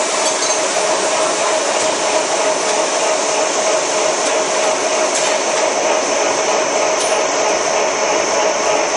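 Corn puff snack extrusion line running: steady loud machine noise with a constant hum, as puffed corn pours from the extruder outlet into a metal funnel.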